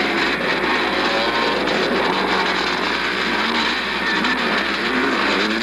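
Two-stroke motocross motorcycle engines running and revving, their pitch rising and falling, heard through a Super 8 sound camera's microphone with heavy hiss.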